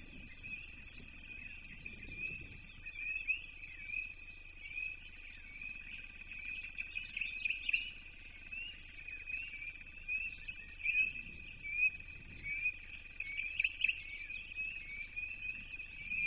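Steady high-pitched insect chorus, with birds chirping over it in short repeated notes that come thicker in the middle and near the end.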